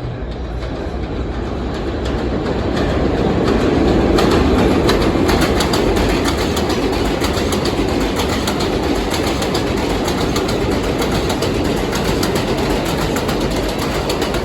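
R142A subway train running through a station without stopping: a steady rumble of the train with rapid clicks of wheels over rail joints. It grows louder over the first few seconds and then stays loud.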